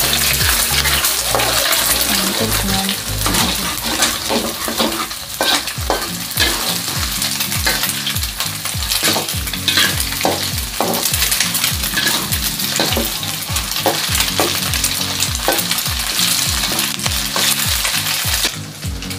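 Eggs sizzling in hot oil in a metal wok as they are scrambled with a metal wok spatula, the spatula scraping and clinking against the pan again and again.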